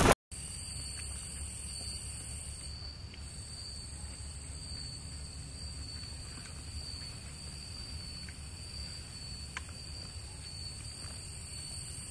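Night insects chirping steadily: a pulsing high trill with a steadier, higher whine above it, over a low rumble. It opens with a brief loud electronic glitch burst, and a few faint clicks of a spoon against a bowl come through.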